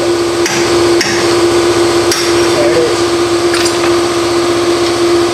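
A few sharp, irregular metal knocks and clanks as suspension parts are handled and worked into place in the wheel well, over a loud, steady mechanical hum.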